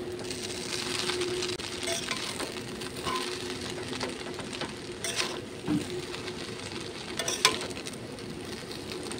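Chowmein noodles with fried cabbage, egg and onion sizzling in a metal wok while a metal spatula stirs and tosses them, scraping across the pan, with a couple of sharper clinks of the spatula against the wok in the second half. A faint steady hum runs underneath.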